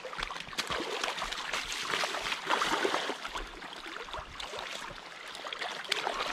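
Shallow river water gurgling and splashing around a hooked chinook salmon held in the shallows, with many small, sharp splashes throughout.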